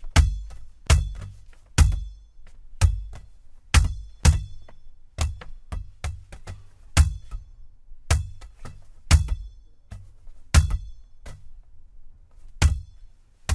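Basketball bouncing on a hard court: an irregular run of heavy thuds, about one to two a second with lighter bounces between, each with a brief ring.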